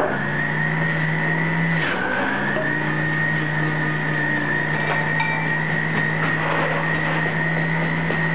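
Centrifugal electric juicer running with a steady high motor whine as produce is pressed down its feed chute. About two seconds in, the pitch dips briefly under the load and then recovers.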